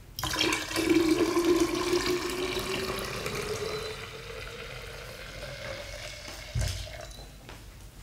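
Cold water poured from a glass bottle into a glass pitcher, splashing, with a pitch that rises steadily as the pitcher fills. The pour is strongest at first and slackens after a few seconds, with a dull knock near the end.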